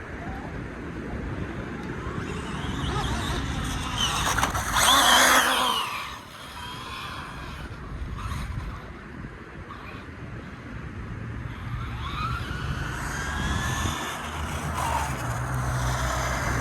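1/7-scale 8S electric RC car running, its motor whine rising and falling with the throttle over wind and rolling noise. The loudest burst comes about four to six seconds in, with more whining near the end.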